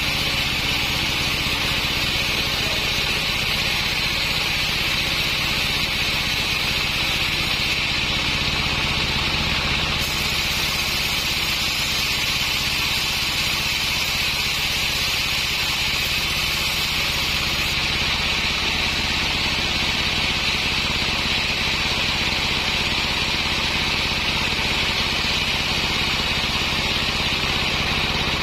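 Sawmill machinery running steadily, an engine droning under the saw's constant high hiss.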